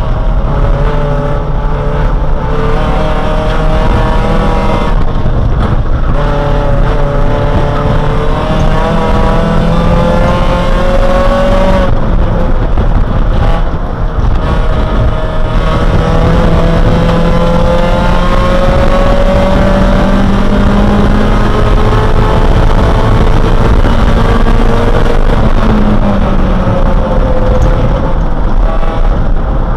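Race car's engine heard from inside the cabin, running hard at full throttle. Its pitch climbs in long sweeps and drops back at gear changes and corners, with a brief lift about 14 seconds in.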